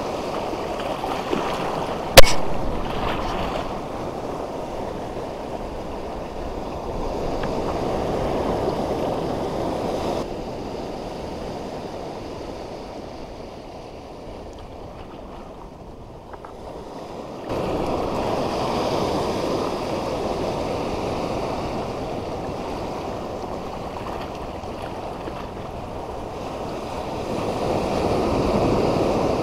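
Sea waves breaking and washing over a shallow rock reef, the wash swelling and fading, with some wind on the microphone. A single sharp knock about two seconds in.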